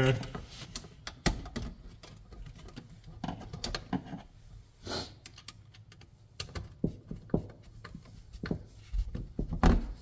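Scattered small clicks and taps of a screwdriver and stiff copper wires working against a 220 V dryer receptacle as the wires are fitted and the terminal screws tightened, irregular, with a louder knock near the end.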